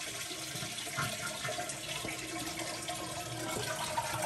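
Toilet flushing with its water supply shut off: a steady rush of water as the tank empties into the bowl and does not refill.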